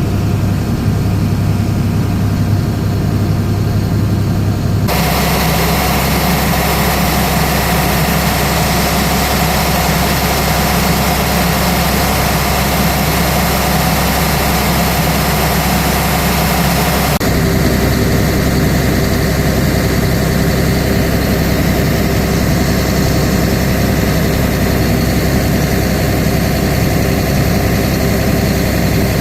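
Heavy diesel engine of farm machinery running steadily. Its tone changes abruptly about five seconds in and again about seventeen seconds in.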